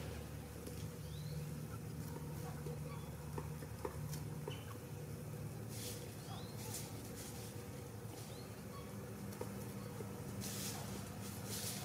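Quiet outdoor ambience around resting bantam chickens: a low steady hum, scattered small ticks and rustles in dry leaf litter, and a few faint short bird chirps. Brief swishing rustles come about halfway through and again near the end.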